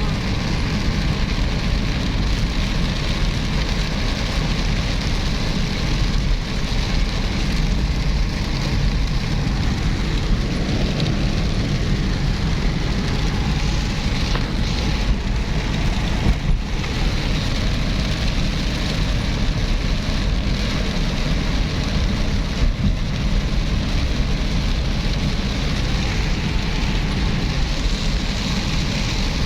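Steady rain falling: an even hiss with a heavy low rumble underneath.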